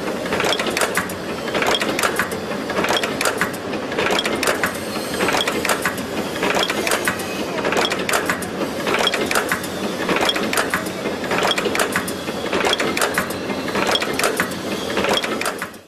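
SGL-2 twisted-chain making machine running, its tooling bending and twisting wire into chain links: a loud metallic clatter of clicks and clacks that repeats in a cycle a little over a second long.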